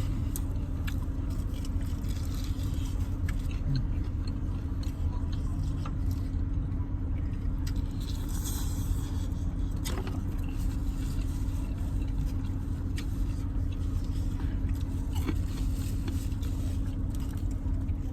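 Steady low rumble with a faint steady hum underneath, and scattered small clicks and scrapes from someone eating fried chicken wings.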